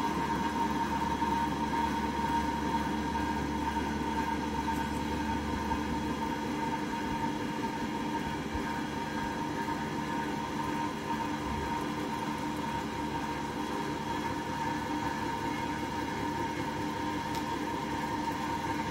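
Electric drive motor of a Ravaglioli two-post car lift running steadily as the lift carriages and arms lower, a constant whine over a steady hum.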